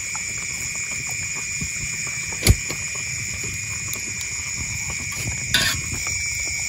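Wood fire crackling under a wok, with a sharp pop about two and a half seconds in and another near the end, over a steady high-pitched chorus of night insects.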